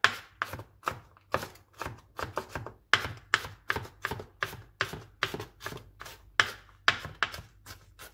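Kitchen knife chopping on a cutting board while finely mincing garlic: a steady run of sharp chops, about two to three a second.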